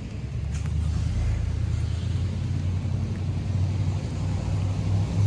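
Car running with a steady low rumble and hum.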